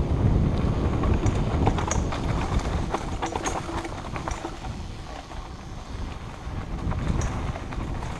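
Mountain bike ridden through dense overgrown brush: leaves and branches swish and slap against the bike and rider, with sharp clicks and rattles as it goes over bumps, thickest in the first half and again near the end, over a steady low rumble of wind on the microphone.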